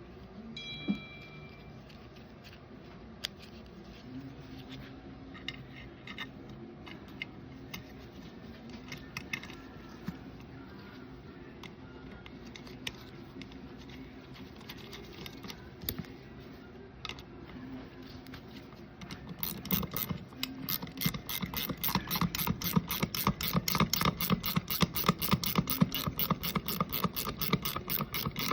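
Small metal winch parts handled with scattered light clicks, then, about two-thirds of the way through, a fast even run of ratcheting clicks, several a second, that continues to the end.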